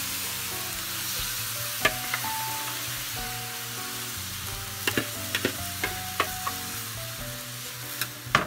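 Soaked glutinous rice sizzling in a hot metal pan as it is scooped in and turned over with a metal spatula. The spatula clicks and scrapes against the pan, once about two seconds in, in a quick cluster around five to six seconds in, and again near the end.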